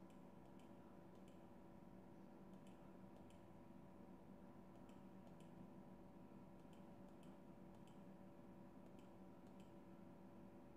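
Faint computer-mouse clicks, mostly in pairs about half a second apart, as each circle's edge is clicked twice to chain-select it, over a steady low electrical hum.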